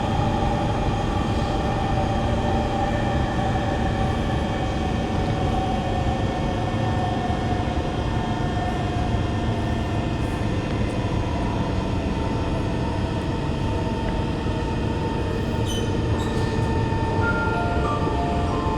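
Interior sound of a Kawasaki C151 metro car's GTO-VVVF traction inverter and motors whining over steady wheel-and-track rumble. The whine tones slowly fall in pitch as the train slows. Near the end they drop in distinct steps, the inverter changing switching pattern at low speed.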